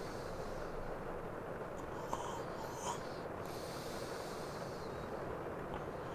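A man breathing slowly and heavily in his sleep, with a long noisy breath about two seconds in and a fainter one after it. Underneath is a steady hiss of rain ambience.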